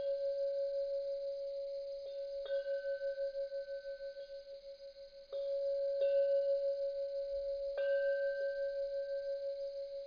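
Deep-toned bell chime struck again every one to two seconds, its long ringing tone wavering in a fast pulse and fading slowly between strikes before a harder strike about five seconds in brings it back up.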